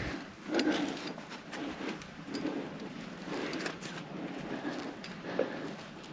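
Scuffing and rustling of a climber's hands, body and gear against a granite slab close to the microphone, in uneven short swells with a few light clicks.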